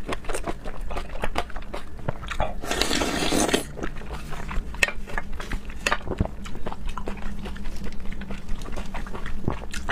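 Close-miked mouth sounds of a person chewing and biting raw seafood: many small wet clicks throughout, with a longer noisy stretch about three seconds in.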